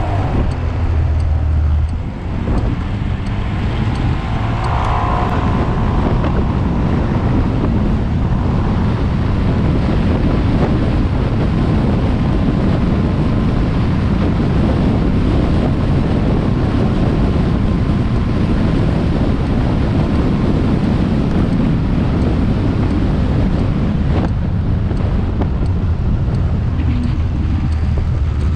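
Steady wind rush and road noise from a moving motor scooter, with a low engine drone underneath, picked up by an action camera mounted on the scooter. The noise stays loud and even, and the hiss thins out sharply about 24 seconds in.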